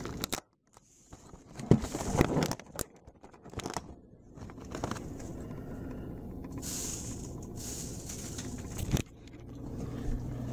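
Fingers pushing open a cardboard advent calendar door close to the microphone, giving scattered scrapes, crackles and clicks over the first few seconds, then a steadier low rustle of handling, with a sharp click about nine seconds in.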